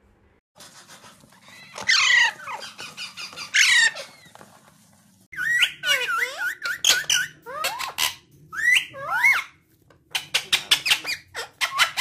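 Indian ringneck parakeets calling: shrill squawks that slide down in pitch, two long ones in the first half, then quick runs of sharp chirps and screeches from about five seconds in.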